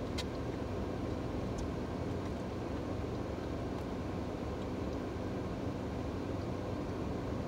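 Steady low rumble of a parked car's idling engine, heard from inside the cabin, with a few faint small clicks from chewing and handling food.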